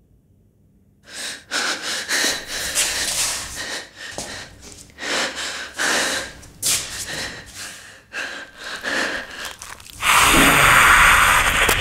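A woman's frightened, uneven breathing and gasps, starting after a second of near silence. About ten seconds in, a sudden loud, sustained noisy burst cuts in.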